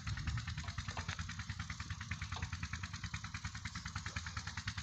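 A diesel engine running steadily with a rapid, even beat.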